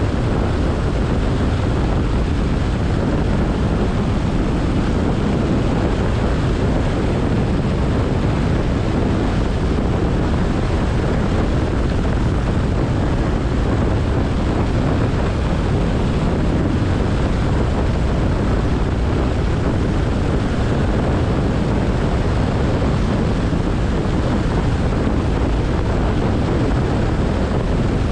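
Cabin noise of a Cessna 172SP: its four-cylinder Lycoming engine and propeller running steadily with wind rushing past, a constant low-heavy drone heard from inside the cockpit.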